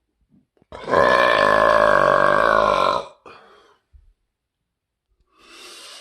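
A man's long, loud burp lasting about two seconds, followed by a short breath. A quieter breathy noise comes near the end.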